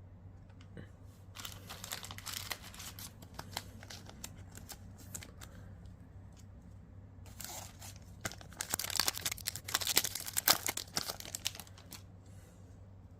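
Foil wrapper of a One Piece card game booster pack crinkling and tearing as the pack is ripped open, in two spells of crackling, the second louder.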